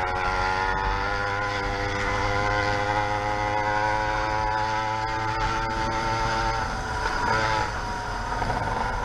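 YD100 two-stroke motorized-bicycle engine with a window piston, running at a steady speed with an even buzz, its pitch shifting briefly about seven seconds in.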